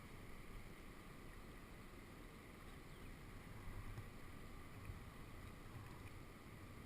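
Faint outdoor ambience: a steady, low rumble of wind on the microphone, with a couple of slightly louder moments midway.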